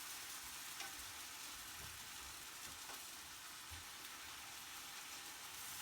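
Kangaroo rump pieces sizzling as they fry in a pan: a steady, even hiss, with a few faint low knocks.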